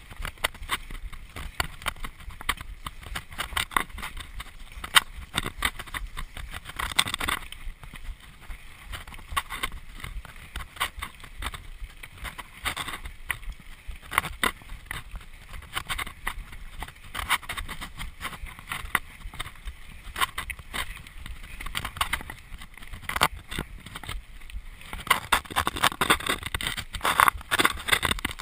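Mountain bike ridden fast over a rough grassy trail: a constant clatter of knocks and rattles from the bike over the bumps. It gets busier around seven seconds in and again near the end.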